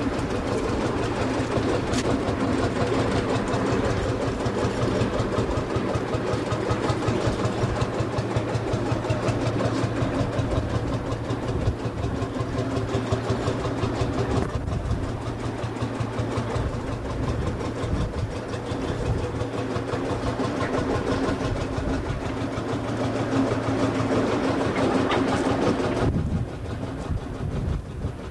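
Small farm tractor engine running steadily with a dense, even beat under load. Its low hum drops away about two seconds before the end.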